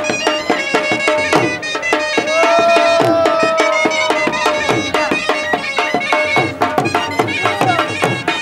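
Traditional Pashtun folk dance music: steady drumming under a pitched melody, which holds one long note from about two seconds in to about four and a half seconds in.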